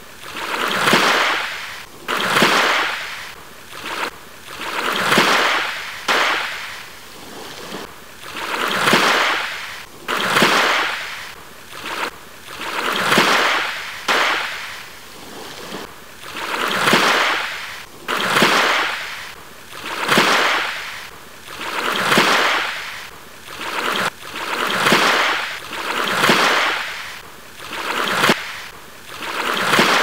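Small sea waves lapping at the shoreline: a rushing wash of water about every second and a half, each rising quickly and fading away, in a steady rhythm.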